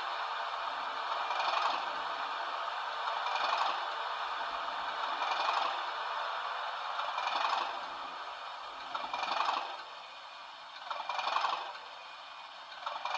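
Model Class 37 diesel engine sound from a DCC sound decoder, played through a small double iPhone speaker: a thin, rattly engine running with almost no bass, swelling about every two seconds.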